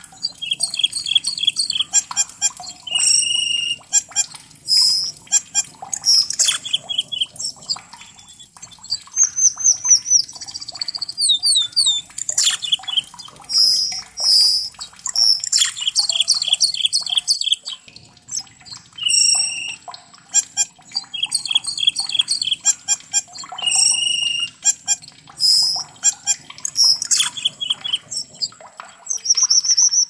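Asian glossy starling calling: a busy stream of sharp, high chirps and whistles, including runs of quick sliding notes. The same phrases come round again and again.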